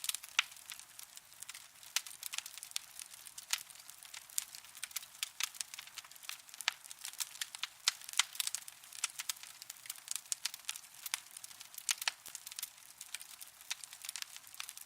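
Burning coals crackling: a dense, irregular run of sharp snaps and pops over a soft hiss.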